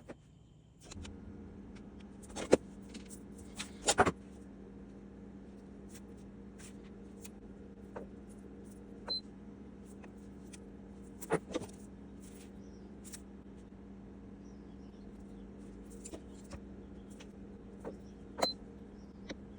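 Ninja Luxe Café ES601 espresso machine starting up about a second in and running with a steady electric hum, with scattered light clicks and taps over it.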